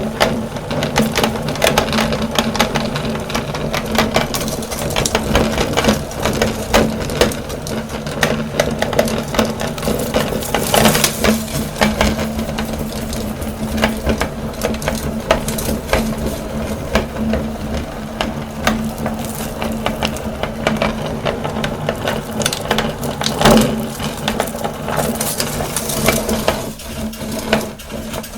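Electric meat grinder running with a steady motor hum, crunching and crackling irregularly as fruit candy is fed through and ground.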